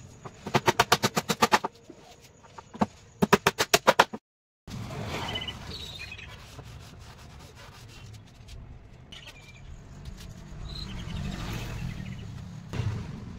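Hammer tapping small nails into a wooden tabletop: a fast run of about ten light strikes, a pause, then a second run of about seven. After a cut, a low steady background with a few short bird chirps.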